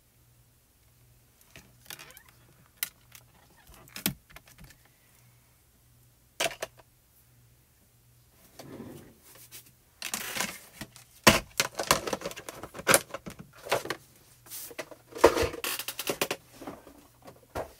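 Hard little clicks and knocks of craft supplies being handled on a work table: a few scattered ones at first, then a dense run of clicking and rattling from about ten seconds in.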